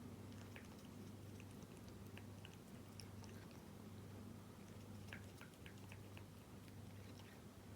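A cat chewing wet cat food (tuna in jelly): faint, irregular small clicks and smacks, over a steady low hum.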